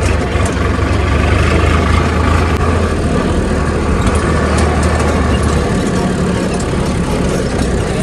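Farm tractor's diesel engine running as the tractor drives along a dirt road, heard up close from the driver's seat. The low engine note shifts about six seconds in.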